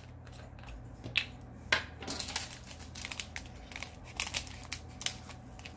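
Small plastic bag of diamond-painting drills being handled and crinkled. Two sharper clicks come about a second in, then a run of light, quick crackles and ticks.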